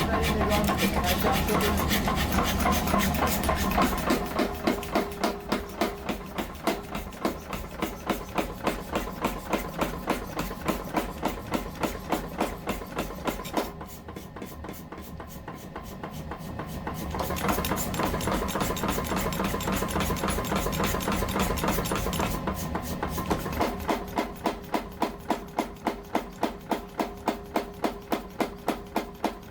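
Steel being forged: hammer blows on hot steel in a quick, even rhythm of about three strikes a second, over a steady low hum. The blows ease off for a few seconds midway, then pick up again.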